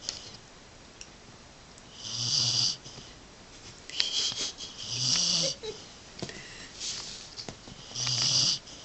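A dog snoring: three loud snores about three seconds apart, each a low buzz with a breathy hiss, with softer wheezy breaths and small clicks between them.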